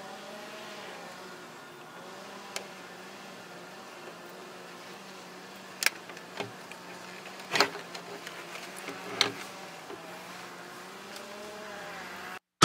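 Plastic parts of a chest-harness phone mount being handled and fitted together: a handful of sharp clicks and knocks, the loudest near the middle. Under them runs a steady low hum.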